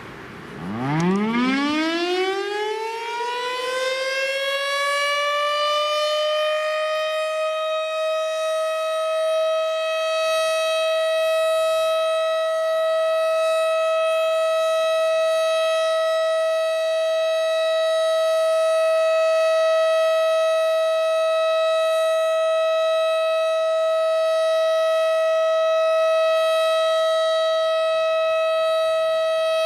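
STH-10 outdoor warning siren winding up and then sounding a steady single tone during its monthly test. The pitch climbs quickly from a low growl in the first few seconds and levels off after about six seconds into a loud, sustained wail.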